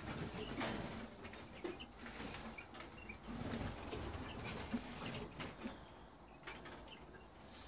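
Siberian bullfinches fluttering and flapping their wings around the aviary flight, in irregular bursts, with a few short high calls scattered through.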